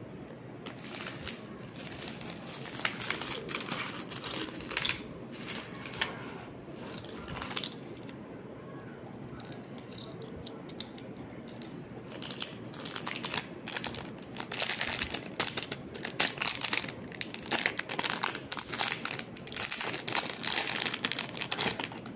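Plastic packaging and bubble wrap crinkling in irregular rustles as hands unwrap a small item. The rustling is sparse at first and becomes busier and louder about halfway through.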